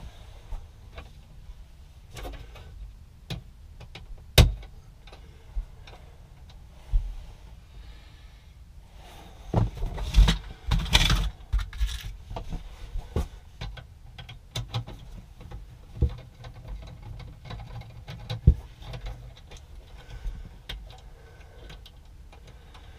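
Scattered clicks, knocks and rattles of hands handling small parts and tools, with a strong knock about four seconds in and a busier, louder stretch of handling around halfway through.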